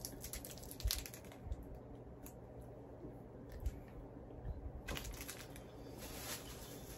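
Faint rustling and light clicks of a small plastic candy wrapper being handled and opened by hand.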